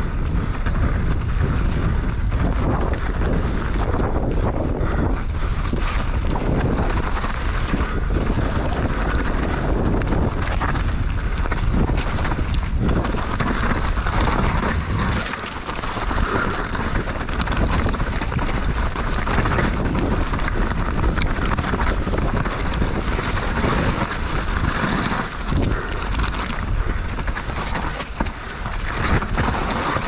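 Heavy wind buffeting a helmet-mounted action camera's microphone during a fast mountain bike descent, with the tyres crunching over loose stony dirt and the bike rattling over bumps.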